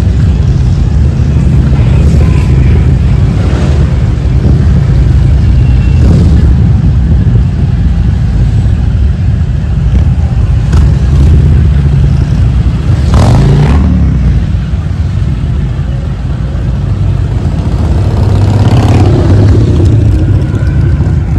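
Motorcycle engines rumbling loudly and steadily, with a brief surge about 13 seconds in.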